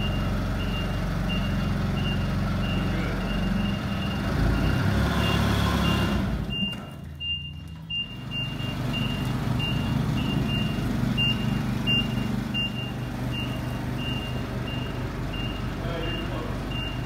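Nissan forklift in reverse: its backup alarm beeps about twice a second over the steady running of its engine. The engine swells around five seconds in and eases off for a moment just after.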